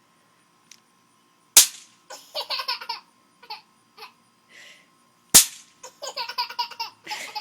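Two snap-pops cracking sharply as they hit the ground, about four seconds apart, each followed by a burst of laughter.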